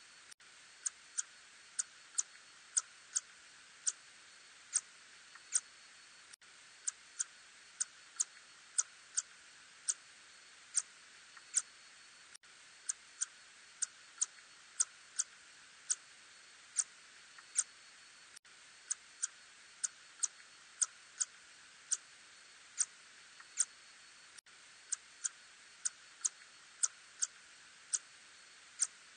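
Ussuri tube-nosed bat (Murina ussuriensis) calls heard as short, sharp clicks at an irregular pace of about one to three a second, with brief pauses, over a steady hiss.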